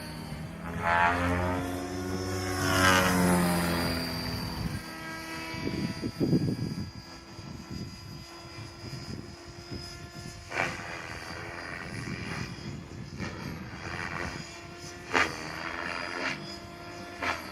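Align T-Rex 550X electric RC helicopter in flight, its rotor and motor whine sweeping down and up in pitch as it maneuvers past, loudest in the first few seconds. It then settles to a steadier, quieter whine with sharp brief swells of rotor noise three times later on.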